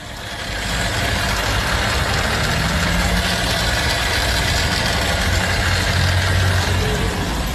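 Motorcycle engine running with a strange metallic clatter, like a spoon rattling inside a blender; the rider wonders whether the engine's top end will need work.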